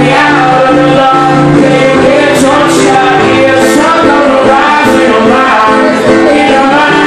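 A man singing live over a strummed steel-string acoustic guitar, recorded loud.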